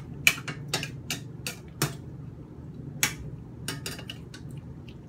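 Spatula clinking against a stainless steel skillet while stir-frying shrimp and vegetables: about a dozen sharp, irregular knocks, over a low steady hum.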